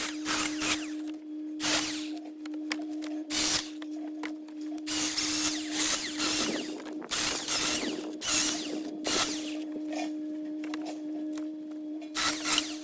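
Milwaukee M18 cordless battery chainsaw running with a steady electric whine, its chain biting into plum wood in repeated short cuts with a longer cut in the middle.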